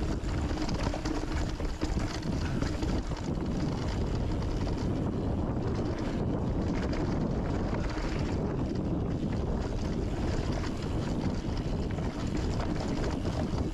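Steady wind rush over the camera microphone of a mountain bike riding a trail, mixed with the constant rumble and rattle of tyres and bike on the dirt.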